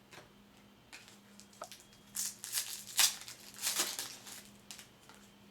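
Trading-card pack wrapper being torn open and crumpled, in a few loud rustling bursts between about two and four seconds in, with light clicks of card handling before them.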